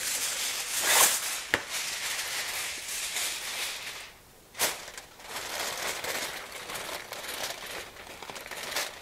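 Heavy-duty aluminium foil crinkling and crackling as it is pressed and folded tightly over a baking dish, with one sharp crackle about four and a half seconds in.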